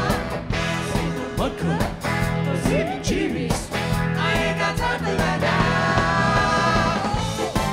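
Live band with a horn section playing an upbeat funk-rock song: steady drums and bass under long, wavering melody notes.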